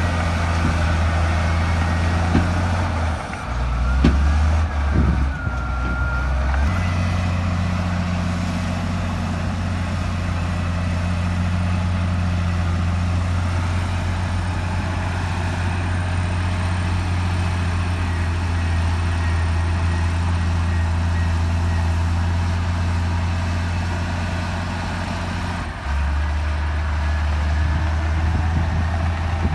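Heavy diesel engine of earthmoving machinery running steadily. About three seconds in, its note drops lower for a few seconds, with a couple of knocks and a short whine. It drops lower again near the end.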